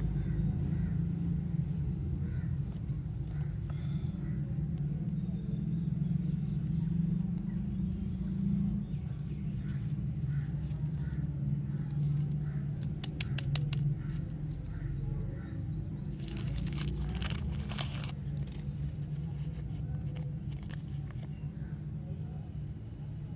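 Plastic lollipop wrapper and tattoo paper crinkling and rustling in the fingers, in scattered crackles with a denser spell a little past the middle, over a steady low background rumble.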